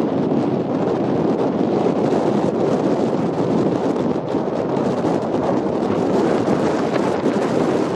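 Steady rush of wind on the microphone over the running noise of a car being driven: engine and tyres on the road.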